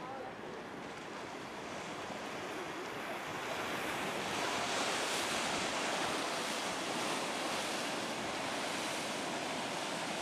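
Winter storm surf breaking and rushing as whitewater, a steady wash that grows louder about four seconds in.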